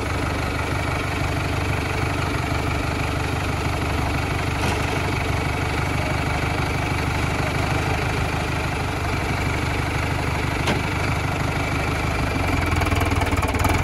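Diesel engine of a modified Sonalika tractor idling steadily, getting somewhat louder near the end.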